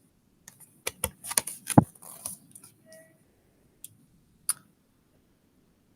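Light clicks and taps from a picture book being handled and a page turned. They come in a quick cluster in the first two seconds, then two single ticks.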